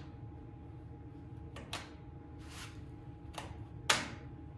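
Craftsman 1842 chainsaw being pull-started on choke without the engine firing: a short noisy rush of a starter-cord pull about halfway through and a few sharp clacks, the loudest near the end, over a faint steady hum.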